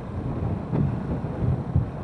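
Wind buffeting the microphone as a low, uneven rumble over the running of a Honda CRF150L's single-cylinder engine while riding.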